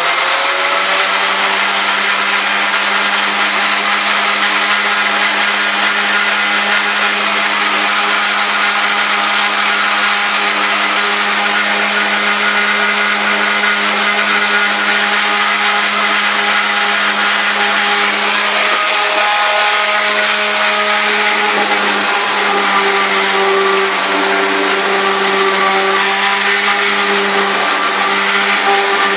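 Electric orbital sander motor running steadily, a loud, even whine that shifts slightly in pitch about twenty seconds in.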